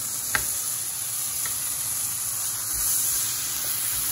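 Chopped onions, cashews and ginger-garlic paste sizzling steadily in hot oil in a non-stick kadai, a wooden spatula stirring chilli powder through them. One short sharp click comes about half a second in.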